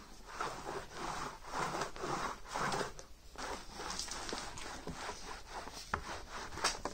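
Paintbrush laden with thick water-based paint being worked over a speaker cabinet's surface: brisk back-and-forth scraping strokes, about two a second.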